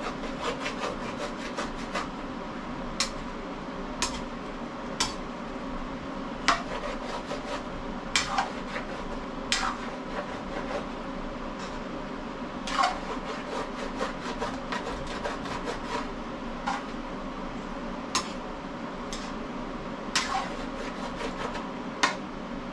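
A spoon scraping and knocking against a wok while stirring pork, sharp strokes every second or so, over a steady low hum.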